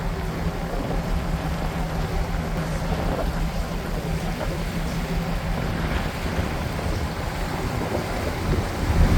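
Cruise boat's engine running with a steady low drone, under a wash of wind and water noise; the rumble swells near the end.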